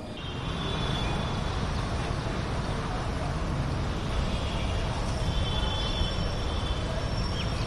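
Steady road traffic noise: a continuous rumble and hiss of passing vehicles.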